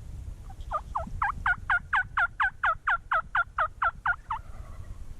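Turkey yelping: a quick run of about fifteen yelps, about four a second, starting about a second in and stopping near the end.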